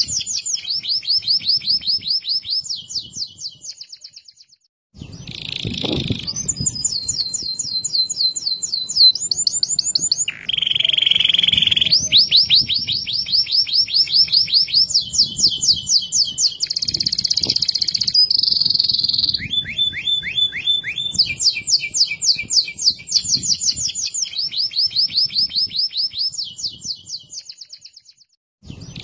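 Domestic canary singing a long, loud song of fast trills, each run of one repeated note giving way to the next, with a couple of buzzy passages. It breaks off briefly about four seconds in and again near the end.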